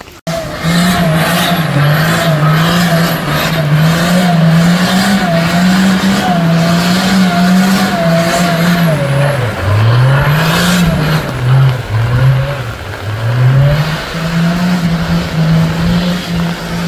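An engine running loudly, its pitch wandering up and down unevenly as it revs and eases. It starts suddenly just after the start.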